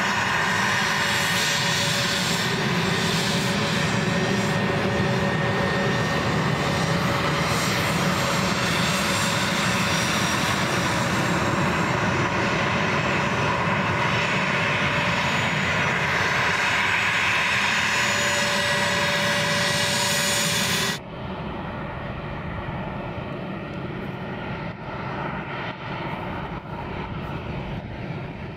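Twin TF34 turbofan engines of an A-10 Thunderbolt II running at taxi power: a steady jet rumble with a high whine over it. About two-thirds of the way through, the sound cuts abruptly to a quieter, duller engine noise.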